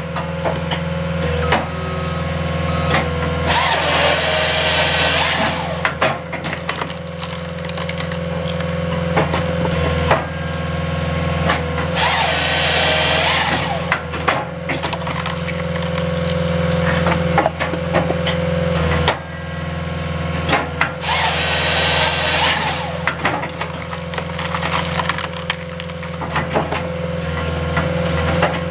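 Skid steer engine and hydraulics running steadily while the Halverson HWP-140B firewood processor's saw cuts through the log three times, each cut lasting about two seconds, with wood knocks and cracks in between.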